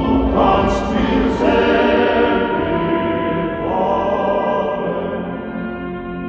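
Recorded music: a choir singing held chords, slowly growing quieter toward the end.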